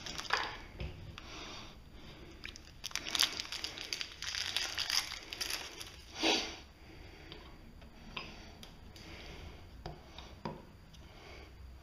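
Packaging of a new ball bearing crinkling and rustling as it is unwrapped by hand: irregular crackles, densest a few seconds in, with one louder rustle midway. A few light clicks follow as it is handled.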